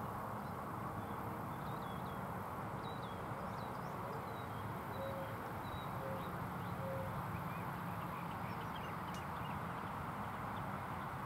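Steady outdoor background noise with faint, scattered bird chirps, and three short distant bird calls about halfway through.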